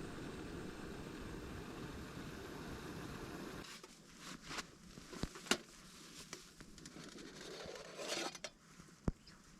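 Faint handling sounds: a steady hiss that cuts off about four seconds in, then scattered sharp clicks and a brief rustle of small objects being handled.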